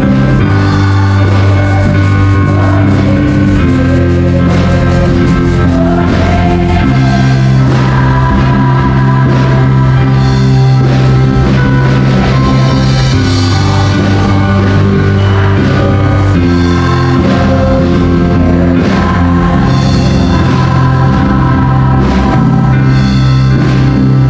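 Live worship singing: several singers on microphones with the congregation joining in, over an amplified band with a steady bass line and drums.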